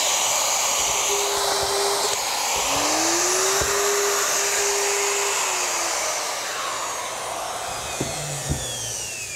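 Plunge router with a 1/4 inch straight bit running at full speed, a steady high whine and hiss as it plunges shelf-pin holes through a hardboard guide. About seven seconds in the motor winds down with a falling whine, and two light knocks come near the end.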